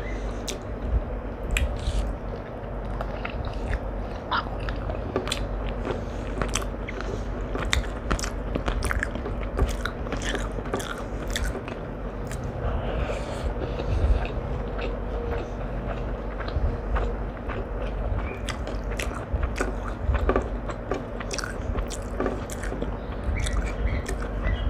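Close-miked eating: a person biting and chewing food, with many short, crisp crunches and mouth clicks throughout, over a steady low hum.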